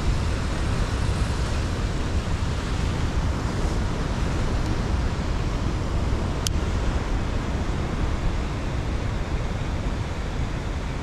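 Wind buffeting the microphone over the wash of the sea on a rocky shore, as a steady rumbling rush. A single sharp click comes about six and a half seconds in.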